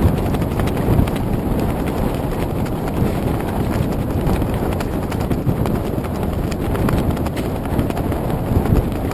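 Steady low rumble of wind and choppy water against a moored floating vessel, with frequent irregular knocks and taps, picked up by a GoPro camera in its housing.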